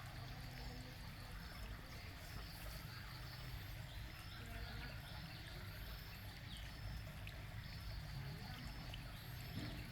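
Small pond waterfall, water trickling and splashing steadily.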